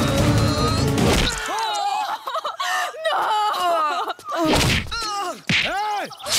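Dubbed fight-scene soundtrack: a dense crash of music and impact effects, then men's shouts and groans that bend up and down in pitch, broken by a couple of sharp punch hits.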